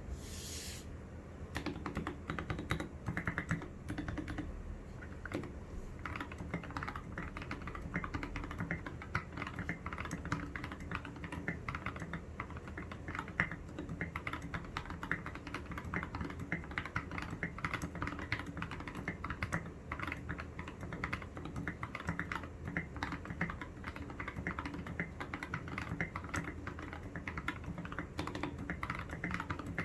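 Typing on a foam-modded Keychron K6 mechanical keyboard with lubed Gateron Yellow Milky Top linear switches and SA-profile keycaps: a steady run of key clacks, several strokes a second, starting after a brief hiss at the very beginning.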